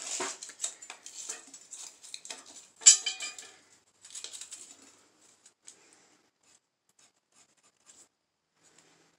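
Steel tape measure pulled out and laid along flat steel bar stock: the blade rattles and clicks, with one sharp clink that rings briefly about three seconds in. A few more clicks follow about four seconds in, then only light ticks.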